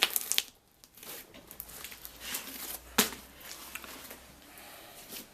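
Sticky slime being pulled and worked on a floor: soft crackling and tearing clicks, with a cluster at the start and a sharper snap about three seconds in.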